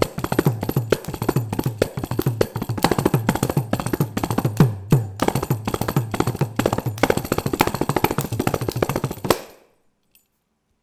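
Kanjira, the small South Indian frame drum, played solo in fast strokes, with deep bass strokes that bend in pitch under the sharper slaps. The phrase ends on a last stroke about nine seconds in, then stops.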